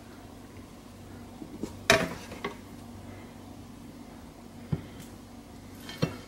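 Sharp knocks and clatter as seasoned raw chicken pieces are set into a plastic air fryer basket. The loudest comes about two seconds in and a few lighter ones follow, over a low steady hum.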